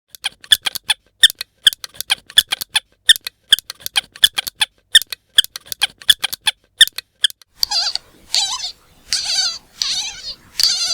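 Squeaky toy squeezed over and over: short, sharp squeaks about four a second, then, about seven and a half seconds in, longer drawn-out squeals that waver in pitch.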